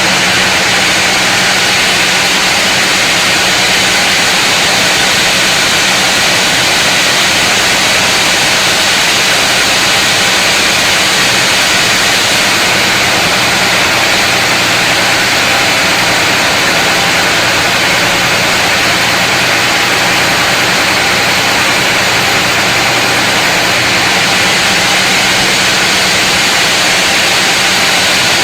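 Powered saw cutting through a large mahogany log, running steadily and loud with an unbroken engine hum under the cutting noise.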